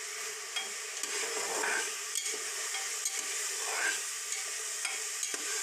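Onion and spice masala sizzling in oil in a pan while a spoon stirs and scrapes it, with scattered small scrapes and clicks. The ground chilli and spice mix has just gone in, and the paste is being fried down.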